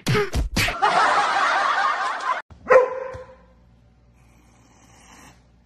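Dog sounds: a few quick thumps, then a noisy stretch of about a second and a half. After a break comes one sharp bark-like call, and the rest is quiet.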